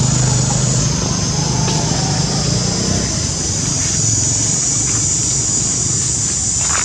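Steady outdoor background noise: a constant high hiss with a low engine-like rumble that fades about three seconds in.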